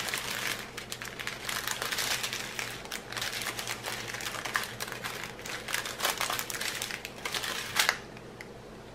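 Clear plastic packets of diamond-painting drills crinkling and crackling as they are handled and counted, a dense run of small irregular crackles that dies down near the end.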